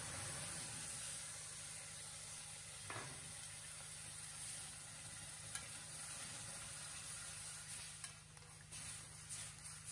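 Liquid poured from a mug into a hot metal pan of ghee-roasted semolina, sizzling and bubbling steadily, with a spatula stirring and scraping against the pan, more scraping near the end.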